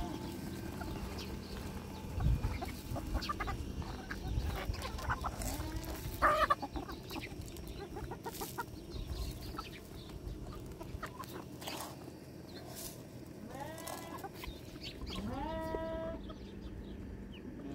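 Flock of chickens clucking as they feed, with scattered short clicks and a couple of louder knocks about two and six seconds in. Near the end come a few longer calls that rise in pitch.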